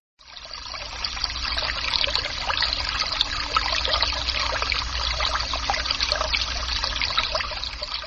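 Stream water trickling and babbling through an opening in the ice, fading in at the start and then running steadily.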